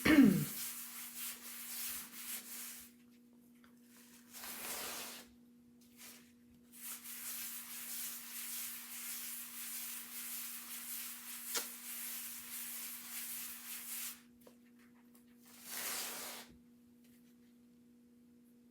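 A terry-cloth fuzzing cloth rubbed over the back of an adhesive silk-screen transfer, giving a dry scrubbing hiss in four spells; the longest spell lasts about seven seconds in the middle. This is the fuzzing step, which leaves fibres on the transfer's back so it doesn't stick too hard or stretch when lifted.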